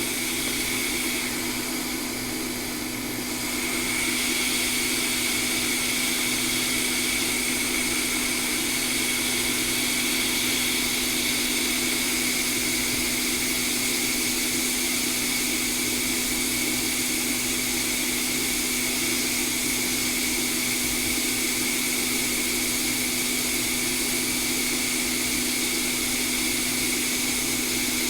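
Hot air rework station blowing steadily on a circuit board chip to melt its solder for removal: a constant rush of air with a steady fan whine, getting slightly louder about four seconds in.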